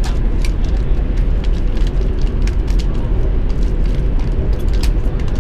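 Steady low rumble inside a moving high-speed train carriage, with scattered small crackles and clicks, such as plastic food packaging being torn open and handled.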